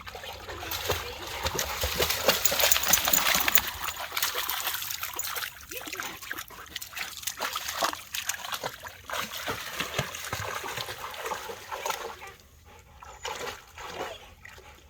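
A Rottweiler splashing through shallow creek water, heaviest in the first few seconds, then lighter scattered splashes that die down near the end.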